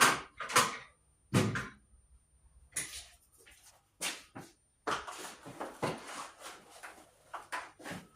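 Irregular knocks, clicks and scrapes of hand tools and an electrical junction box cover being handled as the cover is unscrewed with a Phillips screwdriver and taken off. There is a busier run of clatter about five seconds in.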